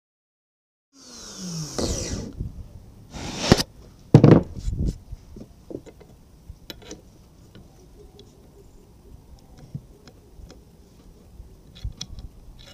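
Flex-shaft rotary grinder briefly grinding on a drum brake shoe's metal web, cutting relief so the shoe fits, then winding down with a falling pitch. A short bright burst and a sharp knock follow a few seconds in, then light metallic clicks as the shoe and wheel-cylinder pin are handled. It opens with about a second of dead silence.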